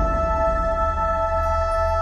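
Background music: a chord held steady over a low bass.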